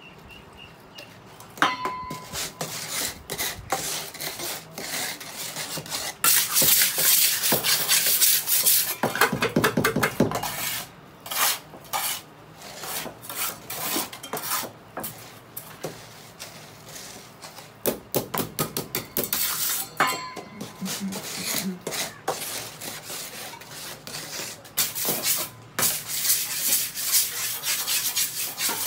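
Steel trowel scraping and scooping wet cement and knocking against a metal pan and tile mould: many sharp metallic clinks and knocks, with longer spells of harsh scraping.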